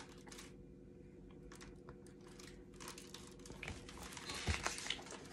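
Faint paper rustling and handling noises as a picture book is moved and its pages are turned, sparse at first and busier in the last two seconds, over a faint steady hum.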